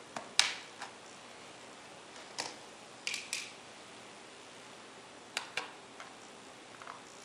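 Irregular sharp clicks and taps of a small screwdriver, tiny screws and the plastic hard drive cover being handled on the underside of an Acer Aspire One D250 netbook, the loudest under a second in.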